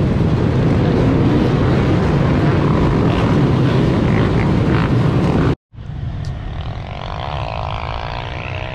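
Many dirt bike engines running together. After an abrupt cut, a single dirt bike's engine comes closer, its note rising and falling as the rider works the throttle.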